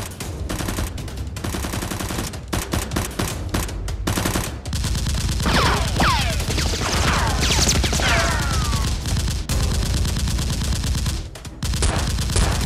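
Rapid automatic gunfire sound effects laid over a Nerf blaster fight: dense volleys of shots in quick succession. About five seconds in, a heavier low rumble joins the shots along with several falling whistling tones. The firing breaks off briefly near the end, then resumes.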